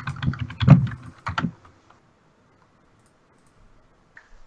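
A quick run of small, hard clicks and clatters for about a second and a half, then it goes quiet apart from one faint click near the end.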